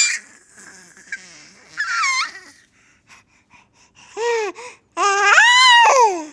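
An animal making a series of drawn-out, whine-like calls. Each call rises and falls in pitch, and the longest comes near the end, sliding down as it fades.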